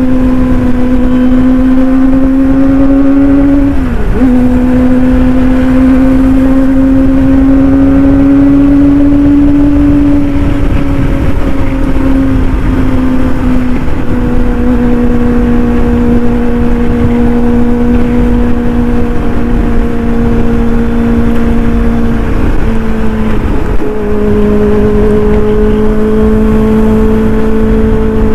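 Kawasaki ZX-25R's inline-four engine through an aftermarket racing exhaust, running steadily at speed with a high, even note. The pitch dips briefly about four seconds in, again midway, and twice near the end, settling slightly lower after the last dip.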